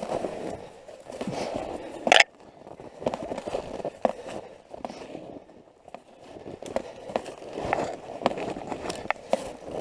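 Footsteps crunching and scraping through packed snow in an uneven walking rhythm, with one sharp snap about two seconds in.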